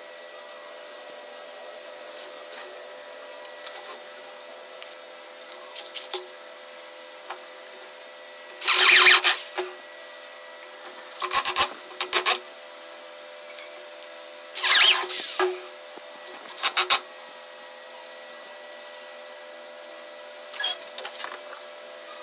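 Wooden boards being handled and shifted against the workbench: about five short scraping, knocking bursts in the middle, over a steady hum.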